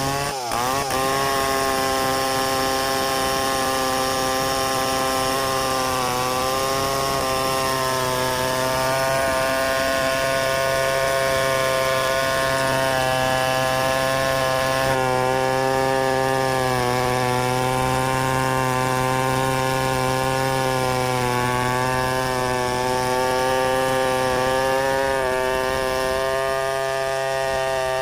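Two-stroke chainsaw running at high speed while cutting through wood. Its engine note sags briefly under load every few seconds and then recovers.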